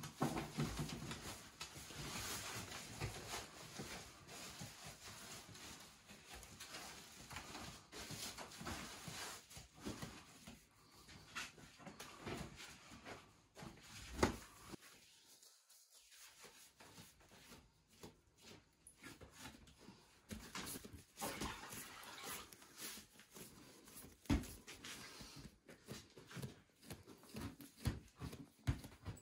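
Balls of bread dough being handled, turned and set down on a wooden board, making irregular soft knocks, pats and rustles. The sound drops out for about a second halfway through.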